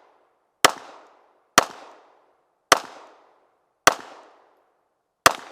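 Five gunshots spaced about a second apart, each trailing off in echo.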